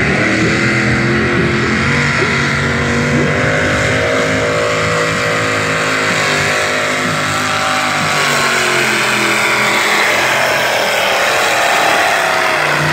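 Pulling truck's engine running hard under heavy load as it drags a weight-transfer sled down the track. The pitch dips a little partway through, then holds.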